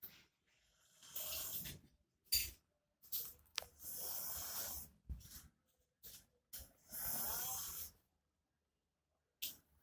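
A sleeping man snoring very loudly: harsh, rasping snores of one to two seconds each, coming in irregular succession with short silent gaps between.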